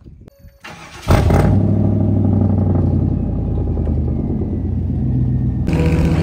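Pickup truck engine comes in suddenly about a second in and runs steadily. Near the end the sound cuts to the steady engine and road noise of a vehicle driving on a highway.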